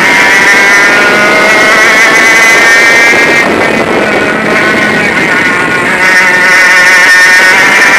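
A 100cc two-stroke kart engine at racing revs, its high buzzing note climbing in pitch. About three and a half seconds in, the note drops and gets quieter as the kart eases off through a bend, then climbs again near the end as it accelerates out.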